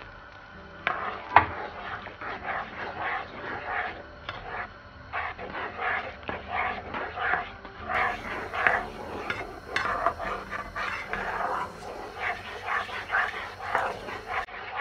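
Silicone spatula stirring thick butter chicken gravy in a pan, mixing in freshly added water, in rhythmic strokes about two or three a second.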